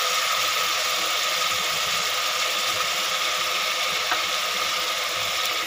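Chopped vegetables sizzling in hot oil in an aluminium pressure cooker, a steady hiss, with a single light click about four seconds in.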